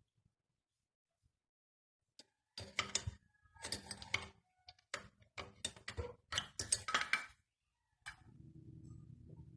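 Rapid clicking and rattling of small metal tools and parts being handled, for about five seconds. A low steady hum starts near the end.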